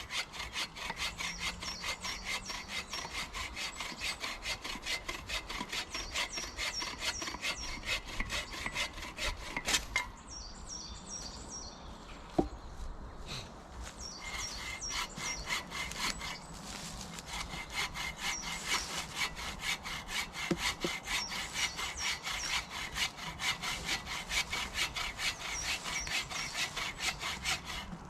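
Hand saw cutting through wood in quick, even back-and-forth strokes. The sawing pauses about ten seconds in, with a single sharp knock, then starts again and runs on.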